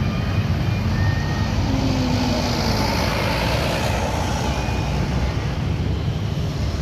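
Large bus engines running with road traffic noise, a low steady rumble. A broad hiss swells in the middle as a vehicle passes.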